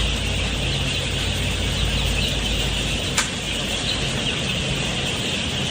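A dense chorus of broiler chicks peeping over the steady low hum of poultry-house ventilation fans, with a single sharp click about three seconds in.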